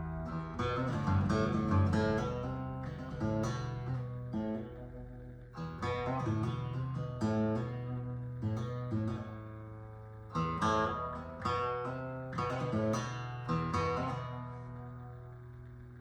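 Yamaha FG5 dreadnought acoustic guitar, solid Sitka spruce top with mahogany back and sides, played as a demo: picked notes and chords ringing out and decaying, with fresh phrases starting about half a second in, near six seconds and again near ten and a half seconds.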